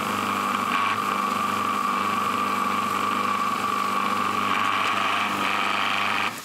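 Breville Kitchen Wizz Pro food processor motor running steadily at speed, pureeing curry paste in its small bowl with the fine blade; it stops abruptly near the end.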